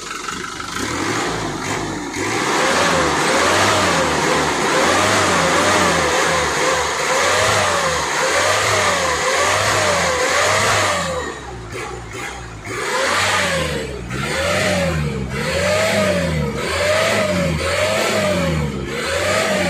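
Turbocharged diesel engine of a Mitsubishi 125 HT truck, fitted with a new turbo and an open exhaust without a muffler canister, being revved in quick throttle blips. It runs steadily at first, then rises and falls about one and a half times a second, with a short lull near the middle. The engine picks up very responsively on the new turbo.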